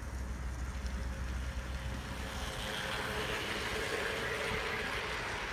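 Large-scale garden model train, a diesel locomotive hauling hopper cars, rolling past on its track. The steady running noise of wheels on rail grows louder and brighter about two and a half seconds in, as the locomotive reaches the microphone.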